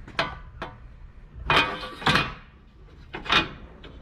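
Clunks and clattering rattles of the upper radiator support being set back into place on the radiator: a sharp knock near the start, two louder clatters around the middle and another knock near the end.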